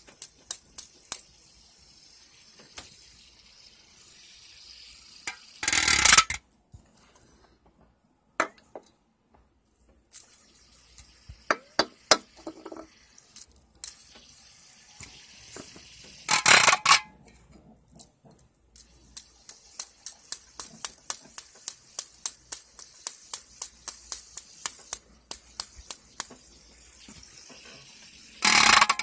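A fidget spinner clicking and tapping against an aluminium drink can in a long run of sharp ticks, often three or four a second. There are three short, loud rattling bursts: about six seconds in, about sixteen seconds in, and at the very end.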